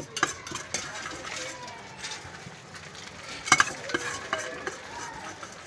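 Metal clinks and scraping from a hand working inside a stainless steel tin while preparing jhal muri: a few sharp clinks, the loudest a quick pair about three and a half seconds in.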